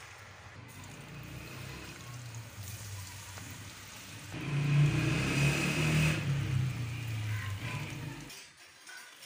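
Cut potato fries deep-frying in hot oil in a wok, a steady sizzle. About four seconds in, a handful of battered potato sticks dropped into the oil sets off a much louder burst of sizzling and bubbling that lasts about four seconds, then cuts off.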